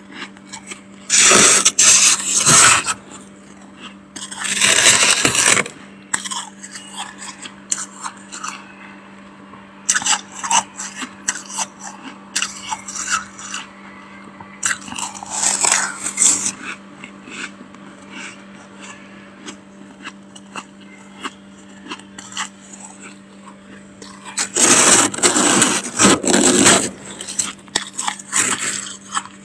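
A spoon scraping and breaking thick freezer frost, in four loud, gritty scrapes with small crackles of ice between them. A steady low hum runs underneath.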